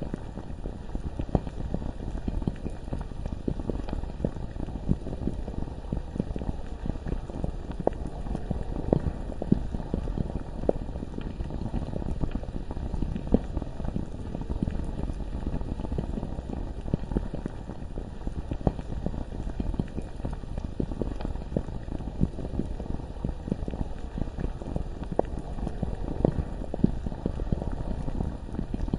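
Bubbling lava ambience: a dense, steady stream of low bubbling pops and crackles.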